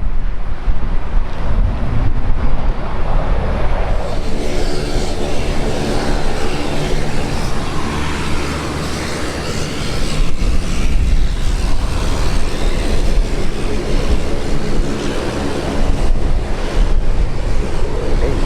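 An aircraft's engines passing: a roar with a stack of steady hums that builds from about four seconds in. Heavy wind rumble on the microphone runs underneath.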